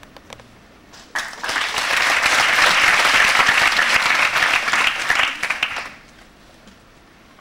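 Audience applauding. The clapping starts suddenly about a second in and cuts off about five seconds later.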